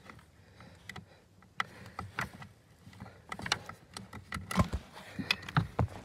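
Irregular soft clicks, knocks and rustles of a phone being handled against a truck's cloth seat, growing busier and louder toward the end.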